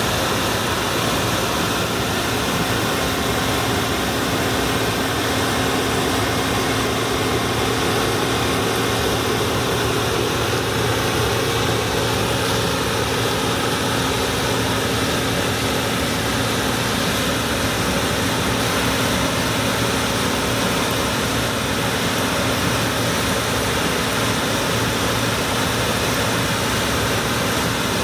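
Allis-Chalmers Gleaner F2 combine harvester running steadily while harvesting corn: engine and threshing machinery with a constant low hum.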